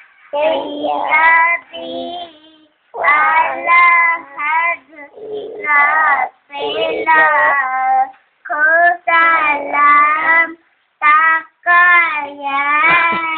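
A child singing alone, unaccompanied, in held and gliding notes. The phrases of a second or two are broken by brief pauses for breath.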